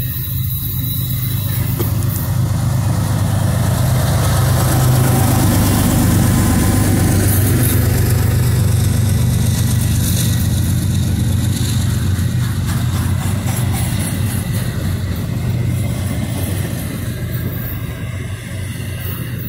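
Double-stack intermodal well cars rolling past close by: steel wheels rumbling on the rails with scattered clicks. It is loudest about five seconds in and eases a little toward the end.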